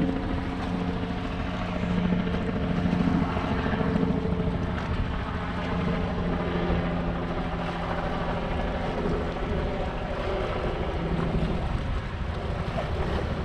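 A steady low engine drone, a little fainter in the second half, with wind noise on the microphone.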